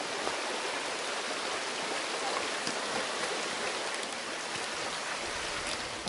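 Shallow stream running over stones: a steady, even rush of water.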